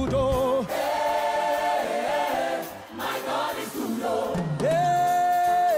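Gospel choir singing a song with long held notes, one long high note held near the end.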